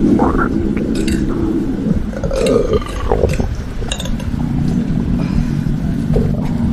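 A person burping: long, low belches, one at the start and another drawn out from about four and a half seconds in, over a low rumble.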